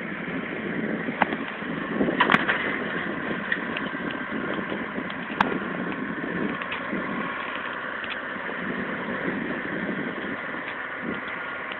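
Case 170 tractor engine running steadily under load as it pulls a tillage implement across the field, with a few sharp clicks over it.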